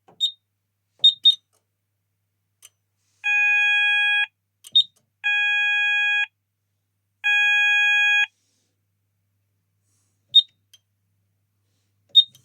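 Fire alarm sounder, most likely the Apollo XP95 sounder beacon base, sounding three steady one-second tones about a second apart. Around them, the Kentec Syncro panel's keypad buzzer gives short high beeps at button presses.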